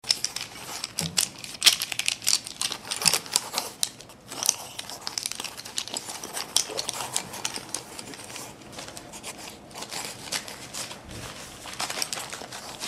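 Charcoal scratching and rubbing on paper in quick, irregular strokes. The strokes are busiest and loudest in the first four seconds, with a brief lull about four seconds in.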